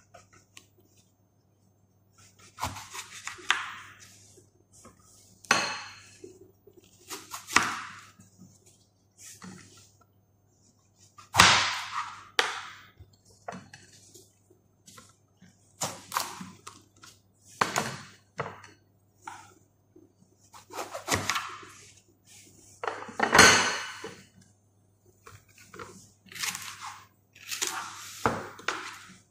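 Knife cutting vegetables on a chopping board: irregular cuts and thunks every second or two, the loudest about eleven and twenty-three seconds in.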